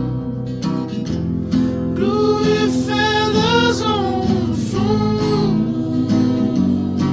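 Background music: a song with acoustic guitar accompaniment and a voice holding a long, wavering sung note in the middle.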